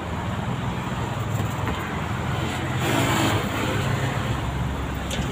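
Street traffic noise: a steady engine hum under a wash of road noise, growing louder for a moment about three seconds in.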